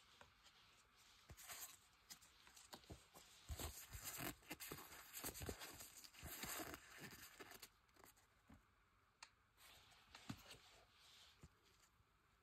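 Quiet crinkling and tearing of a foil Panini Adrenalyn XL trading-card pack being opened, densest from about three and a half to seven seconds in, with scattered light clicks around it.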